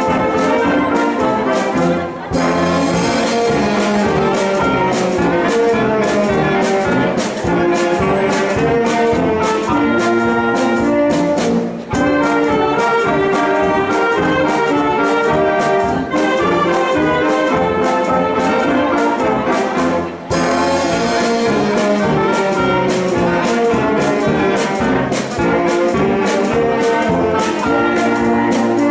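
Wind band playing a lively piece led by brass, with a steady beat; the music drops out briefly a few times between phrases.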